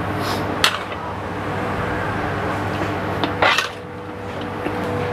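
Metal spatula stirring and scraping through chicken in thick sauce in a large steel wok, with two sharp clanks against the wok, about half a second in and about three and a half seconds in, over a steady kitchen hum.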